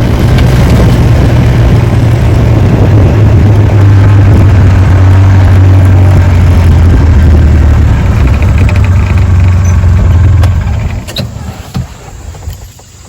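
Polaris Ranger utility vehicle's engine running loud and steady while driving, dropping away sharply about ten seconds in.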